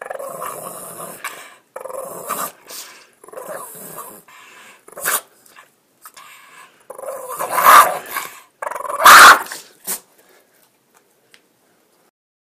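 Black pug growling and grumbling in uneven fits, building to two loud outbursts in the second half before falling quiet about ten seconds in.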